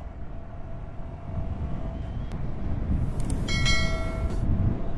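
Honda Grom's 125cc air-cooled single-cylinder engine running under way, with wind and road noise, growing louder. About three and a half seconds in, a short bright ringing chime from a subscribe-button animation sits over it.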